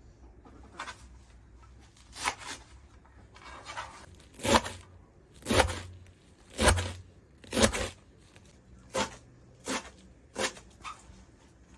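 Knife chopping food on a cutting board: a run of sharp strikes roughly a second apart, louder from about halfway in and coming a little quicker near the end.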